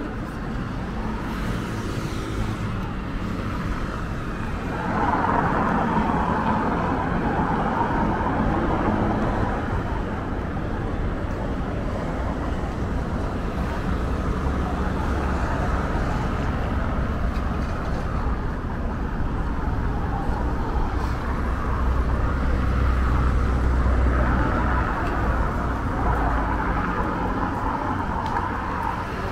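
Road traffic noise from cars passing on a street, a continuous rumble and hiss that swells about five seconds in and again towards the end.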